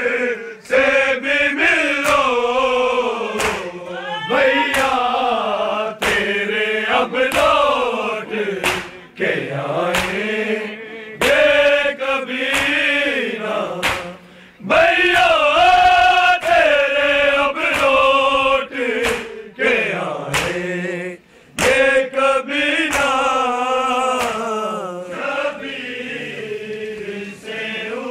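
Group of men chanting a noha, a mourning lament, in unison, with a steady beat of hands striking chests (matam) keeping time under the voices.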